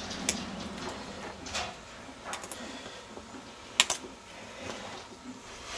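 Hoof nippers snipping excess wall off a horse's hoof at the toe: several sharp snaps about a second apart, the loudest a quick double snap a little past the middle.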